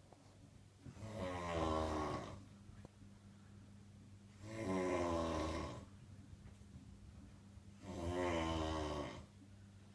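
A man snoring in deep, rattling snores, three in a row about three seconds apart, each lasting a little over a second. A faint steady low hum runs underneath.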